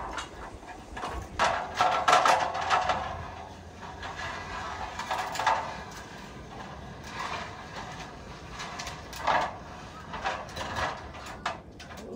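Wooden ladder being lowered into a stone well, knocking and scraping against the stone wall in an irregular string of knocks.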